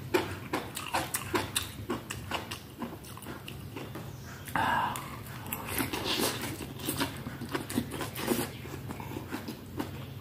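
Close-up wet chewing and biting of a mouthful of soft steamed vegetables and mushrooms, with many small smacking clicks and a louder mouth sound about four and a half seconds in. A steady low hum runs underneath.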